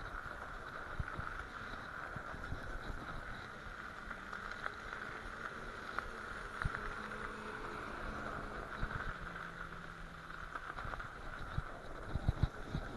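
Bicycle riding over packed, rutted snow, heard through the handlebar: steady tyre noise on the snow with scattered knocks and rattles from bumps, heaviest near the end. A faint low hum comes and goes in the middle.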